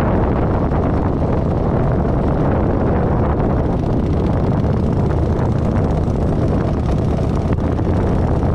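Kawasaki Vulcan 900's V-twin engine running steadily while riding at low speed, with wind noise on the microphone.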